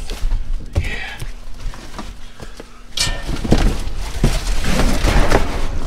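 Rummaging through a dumpster packed with cardboard boxes, shoes and plastic bags: rustling, scraping and thuds, with a few separate knocks at first and busier rustling and knocking from about halfway.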